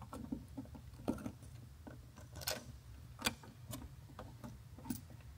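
Irregular small clicks and scrapes of a screw being driven in by hand with a screwdriver to fasten an LED landing light and its retaining ring into the aircraft's cowling, over a low steady hum.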